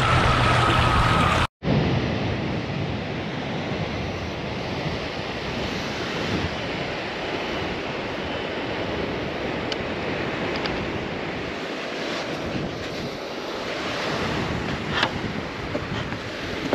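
Surf washing on a beach, with wind buffeting the microphone. It opens with about a second and a half of an RC bait boat's motor whining steadily through splashing water, cut off abruptly, and a few light taps come near the end.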